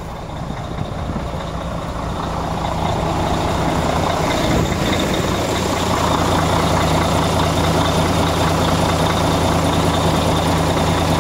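Mercedes-Benz Travego coach's heating and ventilation blower spinning up. Its rushing air sound grows louder over the first five seconds and then holds steady over a steady low hum. The unit is running but blowing cold air.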